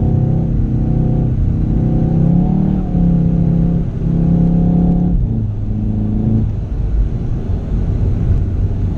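A car engine running under way, its pitch climbing and then breaking and dropping a few times, over a steady low rumble.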